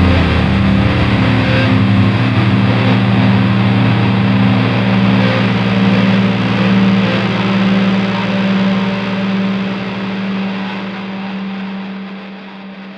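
Doom metal song ending on a held, distorted electric guitar chord that rings on after the band stops and slowly fades out over the last few seconds.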